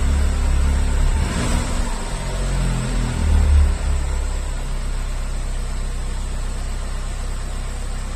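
Seat León Copa engine with stock exhaust running just after a cold start: the note wavers and swells briefly about three and a half seconds in, then settles into a steady idle.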